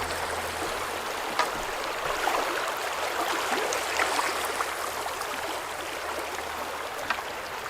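Fast-moving river water rushing, a steady hiss, with a couple of faint sharp knocks.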